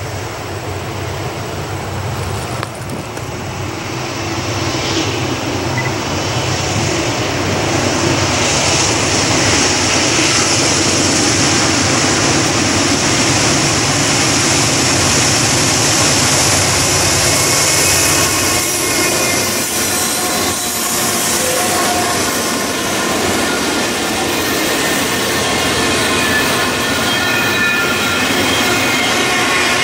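GE diesel locomotives of a double-stack intermodal freight train (a D9-44CW leading) approaching and passing, growing louder over the first several seconds. The steady rolling noise of the stack cars follows, with high squealing tones from the wheels in the second half.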